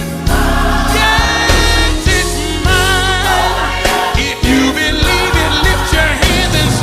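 Gospel quartet singing: a lead voice with vibrato and harmonising voices over instrumental backing with steady low bass notes.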